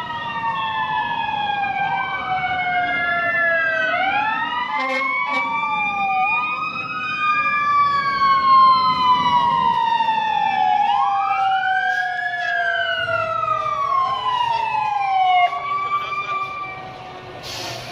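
Several emergency-vehicle sirens wailing at once, their slow rising and falling tones overlapping; they fade out about sixteen seconds in.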